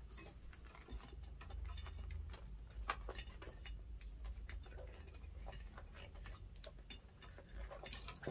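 Hands working a rubber inner tube into an electric unicycle tire: scattered light clicks, taps and rubbing, over a low steady hum.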